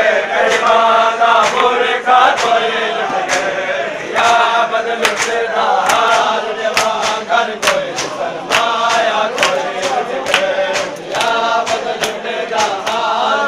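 A group of men chanting a Shia mourning lament (nauha) together, over a steady beat of hands slapping on bare chests (matam), about two to three slaps a second.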